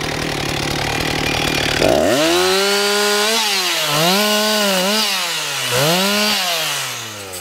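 Ported Husqvarna 357 XP two-stroke chainsaw idling, then opened to full throttle about two seconds in and bucking the felled log. The engine pitch dips several times under the cutting load and recovers, then drops back toward idle near the end.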